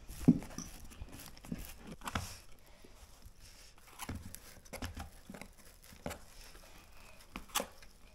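Corrugated cardboard panels being handled while a plastic Makedo screw is driven through the cardboard with a plastic screwdriver: faint scraping and rustling with scattered clicks and knocks, the loudest a knock just after the start.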